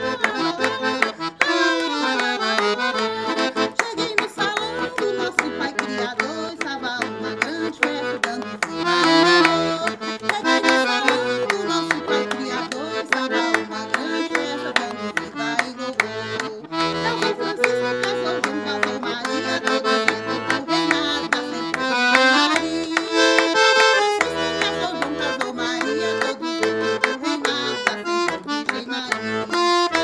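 Santo Daime hymn (hinário) music: melodic instruments, with an accordion-like tone, play a tune over metal maracás shaken in a steady rhythm.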